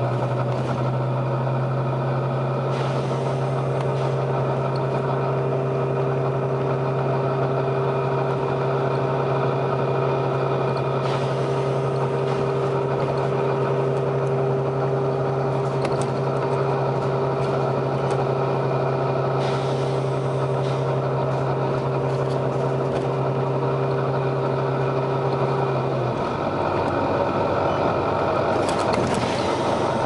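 Volvo B9TL bus's nine-litre six-cylinder diesel heard from inside the bus, running with a steady low drone, with short hisses from the bus's air system about every eight seconds. About 26 seconds in the drone stops and the engine note changes to a lower one.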